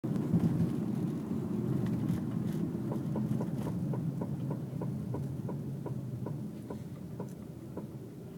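2002 Toyota RAV4 rolling and slowing, with a rhythmic knocking from the rear drum brake that starts about three seconds in and slows with the wheels, from about four knocks a second to under three. The knock persists even with new brake shoes and drums.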